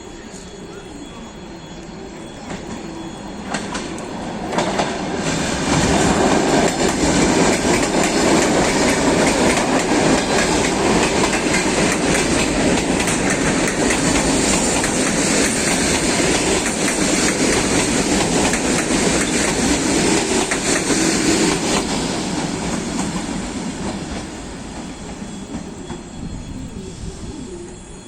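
ET2EM electric train running past at close range, its wheels giving a hard, heavy clatter over the rail joints. It builds up over the first few seconds, stays loud for about fifteen seconds, then fades away near the end.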